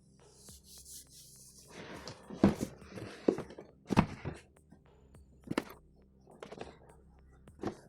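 A rustling scrape, then a handful of separate sharp knocks and clunks of hard objects being handled and set down. No motor or impact hammering is heard.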